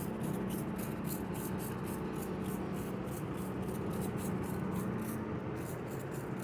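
Steady low hum of a nearby work vehicle's engine running, a truck or forklift. A fast, even rasping tick, about five a second, runs above it.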